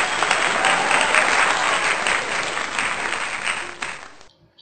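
Applause sound effect: many hands clapping, cutting off abruptly about four seconds in.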